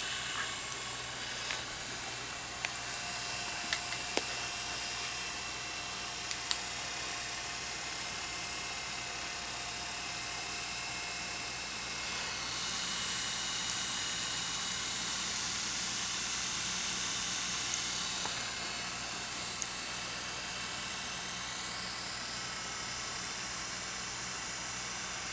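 DeJur 750 film projector running at its lowest speed with the mechanism open: its brush motor hums and the gears, cogs and chain drives whir steadily. There are a few faint clicks in the first several seconds, and the whir is a little louder for several seconds in the middle.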